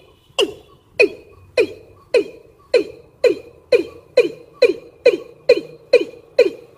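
Lure recording of a female watercock's breeding call: a steady series of short calls, about two a second, each dropping sharply in pitch. It is the call a female in breeding condition uses to draw in males.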